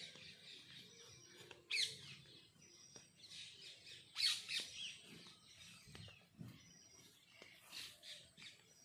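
Birds calling, with two loud, sharp calls, one just under two seconds in and one about four seconds in, among repeated short, thin high notes and weaker calls.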